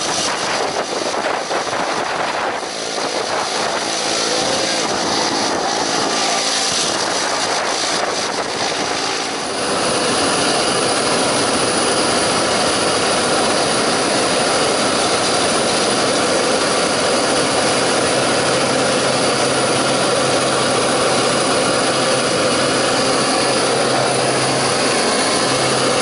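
Single-engine turboprop jump plane's engine and propeller running, heard from inside the cabin. About ten seconds in it steps up to a louder, steady sound with a whine as the plane throttles up for its takeoff roll down the runway.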